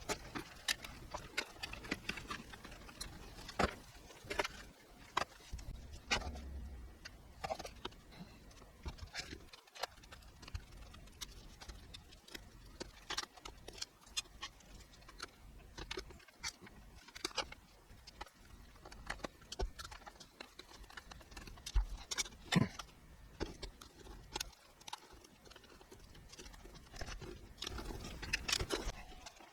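Irregular clicks, taps and knocks of hands handling computer hardware, with sharp plastic and metal contacts at uneven intervals.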